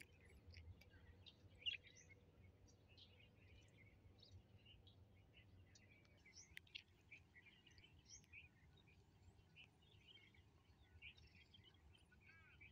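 Faint chirping and twittering of small birds, many short calls overlapping throughout, over a low steady background rumble. A single sharp click about two seconds in.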